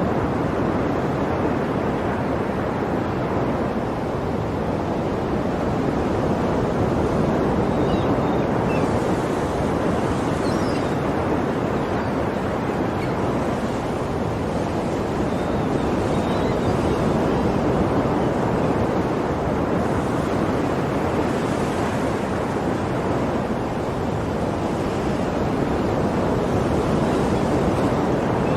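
Sea waves surging and washing in a continuous rushing noise that swells and eases slowly.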